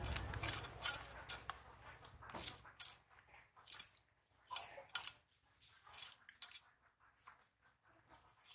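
Snakehead fish being scraped against a curved cutting blade to clean them: a series of short, crisp scraping strokes, irregularly spaced at about one a second.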